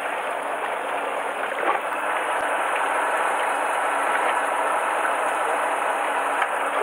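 Fishing boat's engine running steadily, heard on deck as a constant even noise with a few faint ticks.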